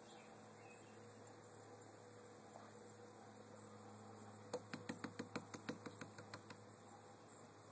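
Near silence with a faint steady hum. Just past the middle, a quick run of about a dozen light taps, about six a second, fades out over two seconds.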